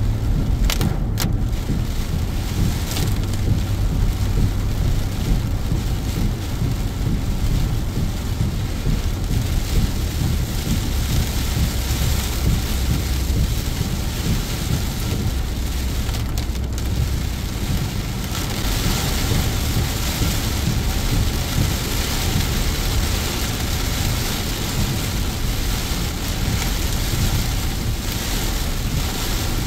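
Heavy rain pelting a moving car's windshield and roof over the low rumble of tyres on a wet road, with a few sharp hits about a second in. The rain's hiss grows louder a little past halfway.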